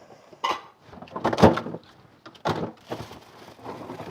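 Clatter and knocks of containers and jars being taken out of a packed refrigerator, a handful of separate handling sounds with the loudest thump about a second and a half in.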